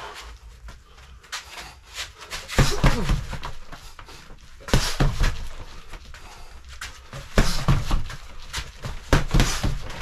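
Gloved punches landing on a Century BOB free-standing torso dummy, in four quick combinations of thuds about every two to three seconds, with quieter gaps between them.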